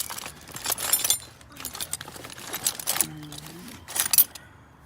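Loose metal sockets clinking and jingling against each other as they are picked through by hand, in about five short bursts roughly a second apart.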